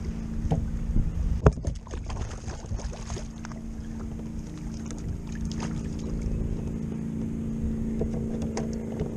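Wind rumbling on the microphone over a steady low hum, with scattered knocks and clicks of gear being handled in a kayak, one sharp knock about a second and a half in.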